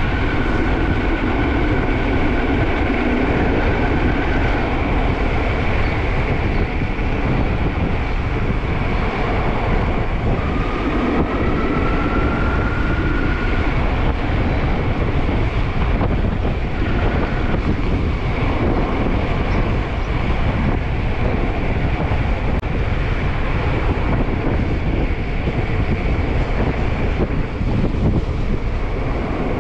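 Wind buffeting the microphone over the steady rumble of a HyperScrambler 2 e-bike being ridden. A thin high whine comes in twice for a few seconds, the second time rising slightly.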